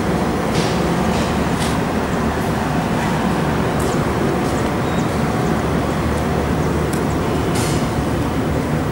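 Spartan fire engine's diesel engine idling, a steady low rumble with no change in speed.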